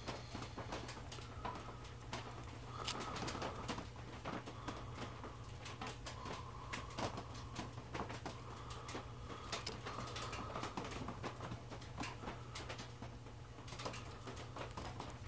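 Razor blade shaving cork on a saxophone palm key riser: irregular small clicks and short scraping strokes, each under a second, as the cork is carved to shape.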